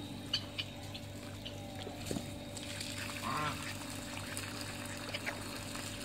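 A duck quacks once, about three seconds in, over a steady low background hum.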